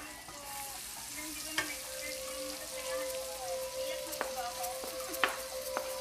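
Crab sizzling as it fries in a hot pan, a steady hiss with a few sharp clicks of a utensil stirring against the pan.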